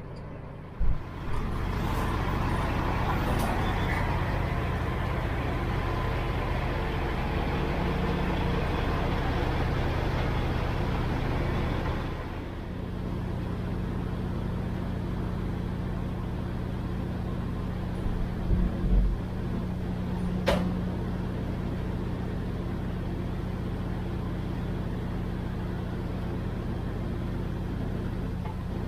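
Semi truck's diesel engine running steadily, with a thump about a second in. About twelve seconds in the sound changes to a steadier, quieter hum, with a few low knocks and one short sharp click around twenty seconds in.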